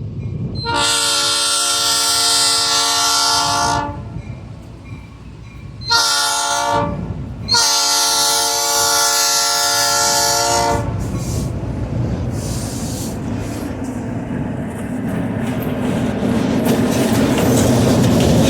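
Train horn blowing three blasts, long, short, long, followed by the rumble of the train rolling along, with scattered clicks, growing louder near the end.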